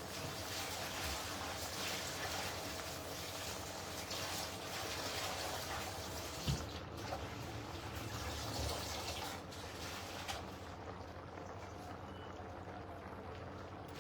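Water running and splashing as spinach leaves are washed, with a single knock about six and a half seconds in; the splashing dies down about ten seconds in.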